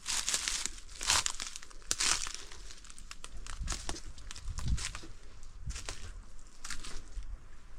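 Irregular crunching and rustling of someone scrambling over dry leaf litter and brush, in uneven bursts, with low rumbling underneath.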